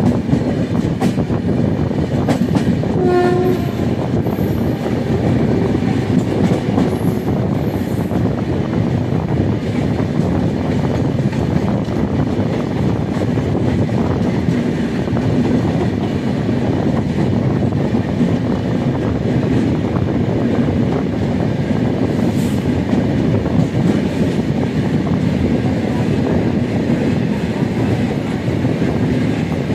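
Steady rumble and wheel clatter of a passenger train running at speed, heard from inside a coach at an open window, with one short train horn blast about three seconds in. A train of wagons passes close by on the next track.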